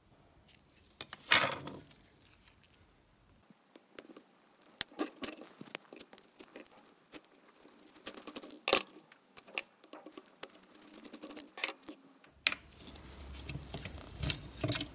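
Handling noises from the soldering station base as it is taken apart: scattered clicks, taps and knocks of plastic case parts and the iron-cored mains transformer being handled by hand. The loudest knocks come about a second and a half in and about nine seconds in.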